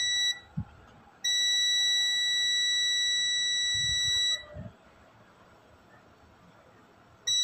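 Multimeter continuity beeper giving a steady high beep as its probes rest across capacitors on a TV's T-con board: the beep marks a shorted reading. A short beep ends just after the start, a long beep of about three seconds follows, and another begins near the end, with a few faint knocks in between.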